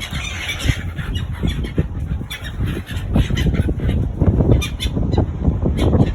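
A flock of silver gulls squawking while being fed, calling in short bursts over a constant low rumble.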